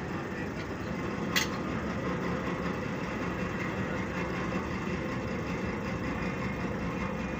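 A motor running steadily, with one sharp metallic clink about a second and a half in.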